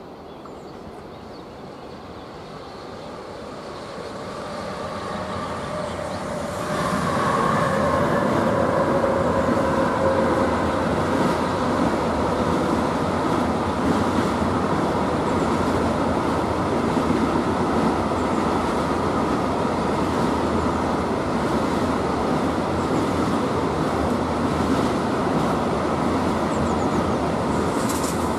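An electric-hauled intermodal freight train carrying lorry semitrailers on a mainline passes by. The sound builds up over the first several seconds, turns abruptly louder about seven seconds in with a whining tone, then settles into a steady, continuous rolling rumble of the wagons.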